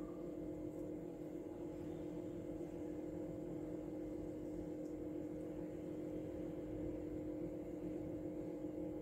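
A steady electrical hum with a faint hiss, holding one unchanging drone throughout, with no distinct knocks or clicks.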